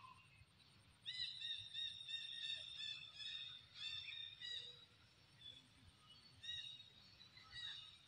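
A run of short, high-pitched squealing calls, several a second, starting about a second in, with a few more near the end.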